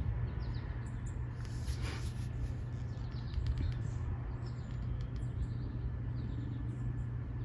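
Steady low background hum with faint, short high ticks and chirps scattered through it.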